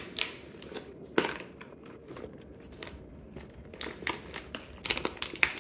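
Light rustling and small clicks and knocks of items being shifted around inside a leather handbag, scattered through, and busier near the end.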